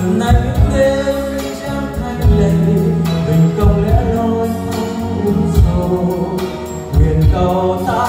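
A man singing karaoke into a microphone over a backing track with a repeating bass beat, played loud through a PA system of full-range and subwoofer speakers.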